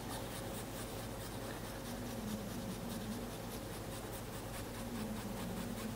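Peeled fresh ginger grated on a fine metal rasp grater: a soft, steady scraping in quick repeated strokes.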